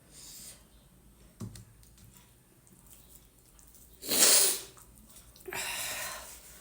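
A person eating hot, spicy food makes two loud, airy mouth noises: a short sharp one about four seconds in and a longer one near the end. A faint knock comes before them.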